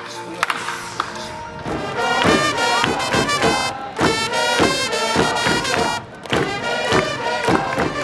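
Background music with a strong, regular beat that takes over about two seconds in, preceded by a few sharp knocks.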